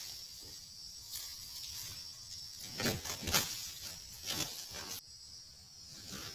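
Two red junglefowl roosters fighting: several sharp wing-flaps and scuffles, the loudest about three seconds in, over a steady drone of insects.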